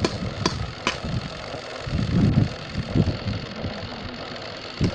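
A steady mechanical running noise, like a motor, with sharp clicks about every half second and some low thumps.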